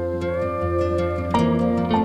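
Background music with soft plucked-string notes, new notes coming in about halfway through and again near the end.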